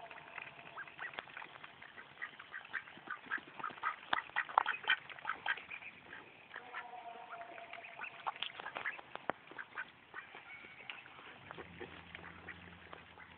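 Pekin duck quacking, a long run of short, rapid quacks that grows busiest and loudest about four to five seconds in.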